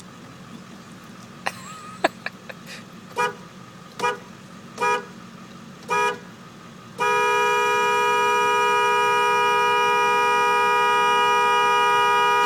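Diesel truck's horn honked: four short honks about a second apart, then one long steady blast held for about five and a half seconds.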